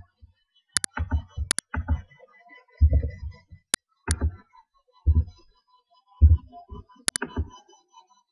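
Scattered sharp clicks from typing and mouse use at a computer, mixed with soft, dull low thumps that come roughly once a second.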